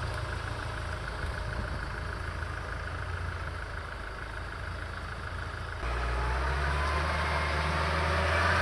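UAZ Patriot engine running at idle, then revving harder about six seconds in, louder and with a slowly rising whine.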